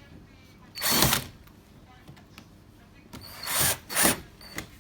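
Power drill-driver running in short bursts while driving screws into the washing machine's panel: once about a second in, then twice in quick succession near the end.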